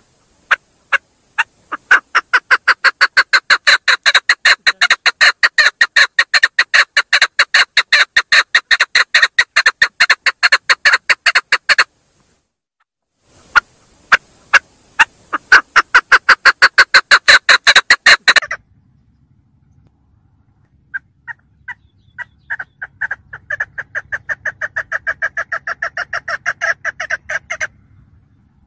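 Female chukar partridge calling: a long run of rapid chuck notes that speeds up over the first two seconds into a steady pace of about six a second. The run breaks off twice for a second or two, and the last bout is fainter, with a low hum beneath it.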